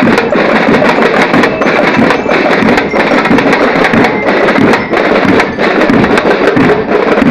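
Marching band drum line of snare drums and bass drums playing a loud, fast cadence of dense, sharp strokes.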